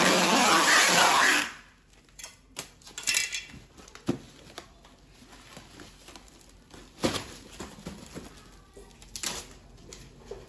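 Packing tape pulled off its roll with a loud, continuous screech for about the first second and a half, stopping abruptly. After that come quieter rustles of plastic stretch wrap being pressed down by hand, with a few short clicks and brief crackles.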